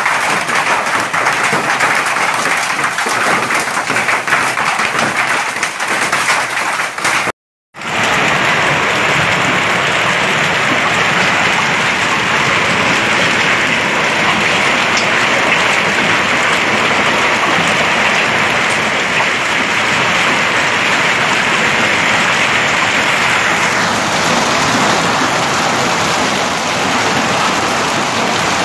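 Hail pelting down on the ground, a dense crackling patter of many hailstones striking at once. It breaks off in a brief silent cut about seven seconds in, then goes on as a steadier hiss of falling hail and rain.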